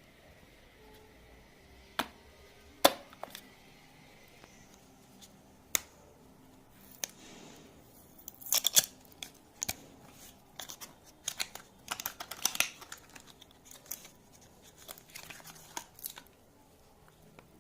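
Packaging of a phone charger being handled and opened: a few sharp clicks and taps, then from about halfway a busy run of crinkling and tearing of paper and plastic.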